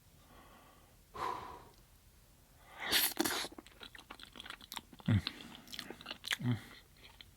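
Close-miked chewing of mac and cheese: soft wet mouth clicks and smacks, with a short hiss about three seconds in and two brief low hums near the end.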